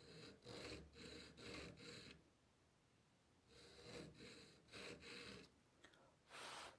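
Metal being abraded by hand in back-and-forth strokes, about two a second: rust being worked off a steel bayonet scabbard. The strokes come in two runs of four or five, followed near the end by one short, louder hiss.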